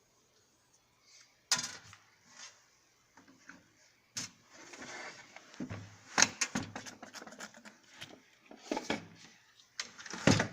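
Handling noises from a desktop computer case as its cover screws are undone: sharp clicks and knocks with a stretch of scraping, then a quick run of clicks near the end.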